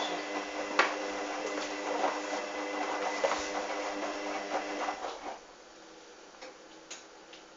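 Hoover washing machine's motor turning the drum during a wash, a steady mechanical whine with scattered clicks and knocks from the tumbling load. The drum stops about five seconds in and the sound drops to a much quieter hush with a few faint clicks.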